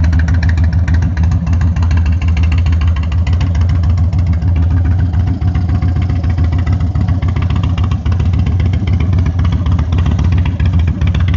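Indian Thunderstroke 116 V-twin of a 2025 Indian Sport Chief running through a Two Brothers Racing 2-into-1 shorty aftermarket exhaust, idling steadily with a loud, deep exhaust note.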